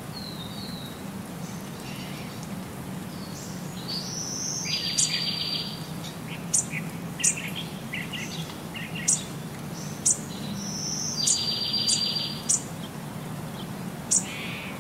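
High-pitched chirping: short chirps, and twice a buzzy trilled phrase, with a dozen or so sharp clicks in between, over a low steady hum.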